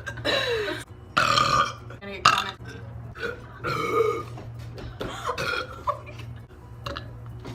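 A girl burping repeatedly: about six belches of varying length, the longest ones near the start, at about a second in and at about four seconds in.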